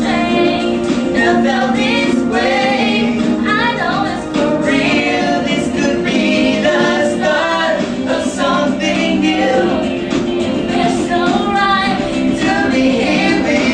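Pop song: singing over backing music.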